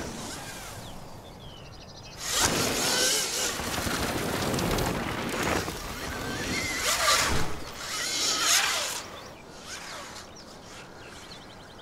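Alta Motors electric dirt bike riding hard over dirt: the motor's whine rises and falls with the throttle over the noise of its knobby tyres and chain. It comes in loud about two seconds in and falls away after about nine seconds.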